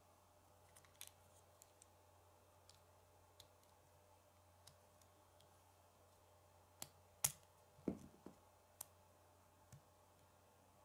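Plastic K'nex rods and connectors clicking as they are handled and snapped together by hand: scattered faint clicks, with a cluster of louder snaps about two-thirds of the way through.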